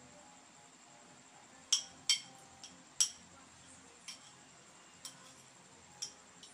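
Metal spoon clinking against a small bowl as food is scooped out and fed: about eight short, sharp clinks, the three loudest in the first half.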